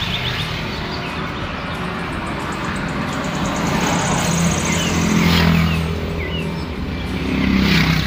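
A vehicle engine running steadily close by, with other vehicles going past on the road; two pass-bys swell and fade, the loudest about five seconds in and another near the end.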